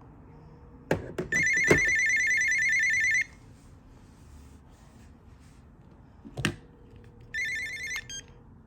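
Panasonic KX-TG210 cordless phone ringing on an incoming call with a rapid electronic trill: a ring of about two seconds, then a shorter one about six seconds in. A few sharp knocks of the handset being handled come before and between the rings.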